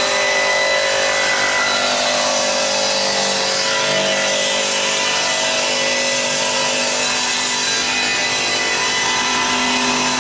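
Table saw ripping a 3/4-inch glued-up pine panel lengthwise, the blade cutting steadily under load through the whole pass.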